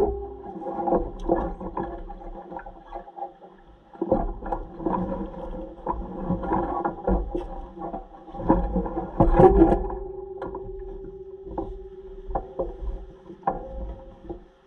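Dual-sport motorcycle engine running while riding, its note rising and falling, with wind rumble on the microphone and frequent knocks and rattles. The engine drops back briefly about four seconds in and holds a steady note near the end.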